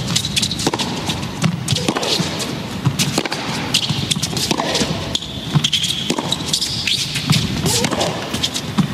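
Tennis arena crowd: spectators calling out and chattering, with sharp racket-on-ball strikes of a rally.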